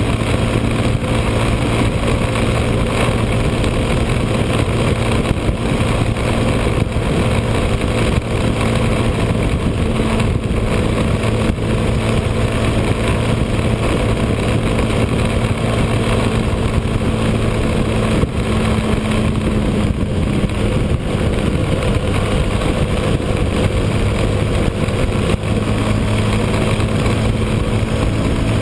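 Motorcycle engine running at a steady cruise, pitch holding level, with heavy wind and road noise on a bike-mounted camera.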